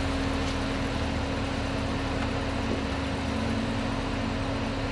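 Chevrolet Camaro ZL1's supercharged 6.2-litre V8 idling steadily.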